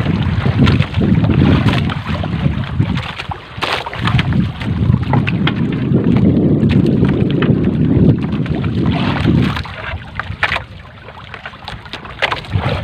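Wind buffeting the microphone in gusts, easing about nine seconds in, over the splashing, dripping and scattered knocks of a wet gill net being hauled by hand over a small boat's wooden gunwale.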